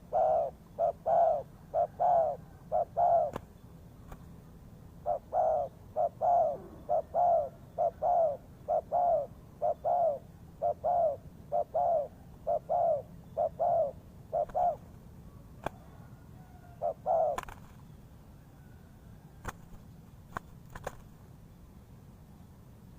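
Spotted dove cooing: a long run of short, mellow coo notes, about two a second. There is a brief pause after the first few notes, and the calling stops about three-quarters of the way through. A few faint clicks follow.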